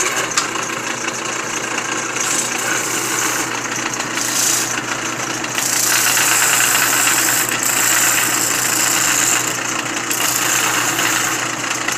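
Homemade disc sander, a washing-machine motor spinning a wooden wheel faced with glued-on sandpaper, running with a steady hum. Wood is pressed against the disc, adding a loud sanding hiss that grows louder in the middle.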